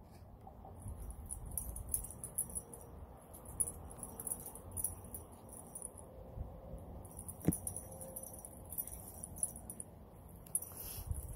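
Faint high-pitched chirping in irregular clusters over a low rumble, with a single sharp click about seven and a half seconds in.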